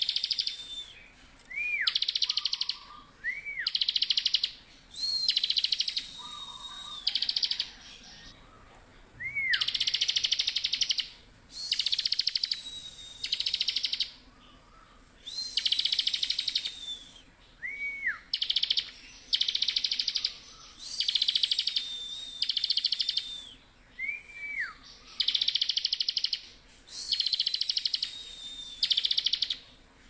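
Bar-winged prinia (ciblek) in full, nonstop song: fast, buzzy trills about a second long, repeated every second or two, with a high drawn-out whistle and short down-slurred notes in between.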